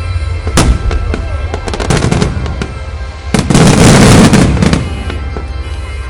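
Aerial fireworks bursting: a sharp bang about half a second in, a few cracks around two seconds, then a loud spell of dense crackling from about three and a half to nearly five seconds. Music plays steadily underneath.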